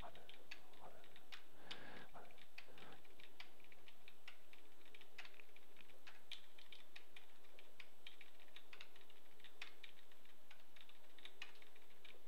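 Computer keyboard keys tapped in an irregular run of quick clicks.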